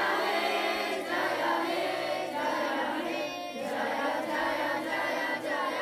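A group of voices singing together, a chant-like song with several voices overlapping and holding notes.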